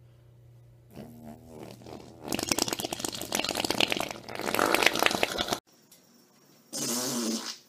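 A man farting several times: a short pitched fart about a second in, then a long, loud, raspy sputtering one lasting about three seconds that cuts off abruptly, and after a moment of silence another short pitched fart near the end.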